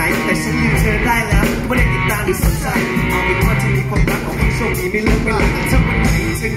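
Live pop-rock band playing loudly through a concert PA, with drums, bass and electric guitar under a male singer's voice.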